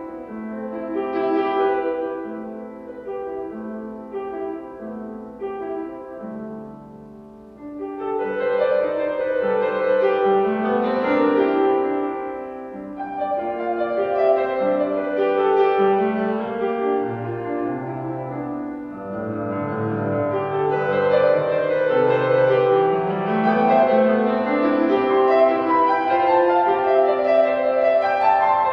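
Young Chang grand piano being played: a soft passage of evenly repeated chords, then after a brief lull at about eight seconds, fuller and louder playing with deep bass notes, building toward the end.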